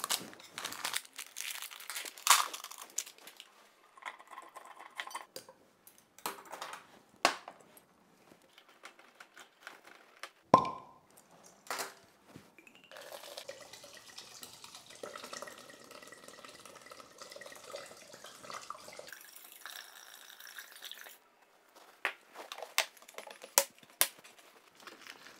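Dried gentian root pieces tipped from a crinkling plastic bag into a plastic bucket, with rustles and small knocks, and a sharp crack about ten seconds in as a wine bottle is opened. White wine is then poured, splashing and gurgling, into the bucket for about eight seconds, and near the end several sharp clicks come as the bucket's plastic lid is pressed shut.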